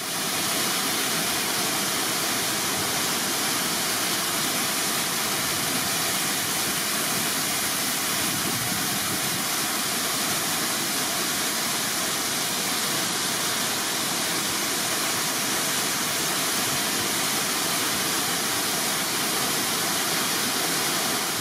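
Water overflowing a reservoir dam's spillway and pouring down its concrete face, a steady, even rush of falling, splashing water.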